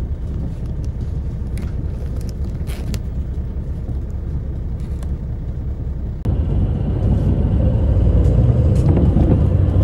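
Steady low rumble of a moving passenger vehicle heard from inside the cabin, growing louder about six seconds in.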